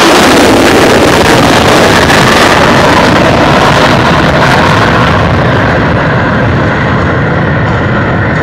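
Loud jet engine noise from the Blue Angels' four-jet diamond formation flying low past the crowd. The sound grows duller in the last few seconds as the high end fades and the jets move away.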